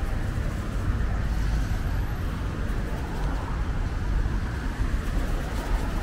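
City road traffic: a steady rumble of passing cars and engines.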